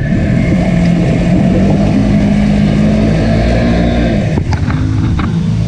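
Polaris Sportsman 1000XP ATV's twin-cylinder engine running hard under load in mud, its pitch climbing slightly and then dropping back about four seconds in, followed by a few sharp knocks.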